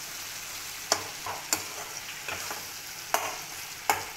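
Tomato-spice masala sizzling in oil in a metal kadhai while a slotted metal spatula stirs it, with four sharp knocks and scrapes of the spatula against the pan. The masala is cooked through.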